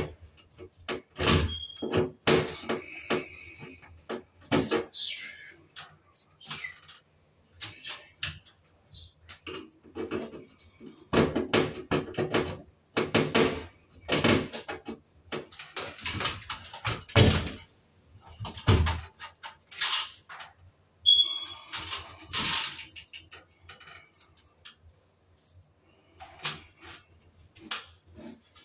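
Irregular clanks, knocks and rattles of a hand tool and hands working inside a sheet-metal fluorescent light fixture, with the metal housing rattling.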